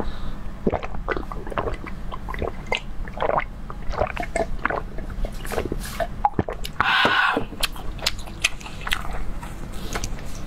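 Close-miked gulping and swallowing of juice from a glass, with many small wet mouth clicks and a short breathy rush about seven seconds in. Chewing and biting into food come near the end.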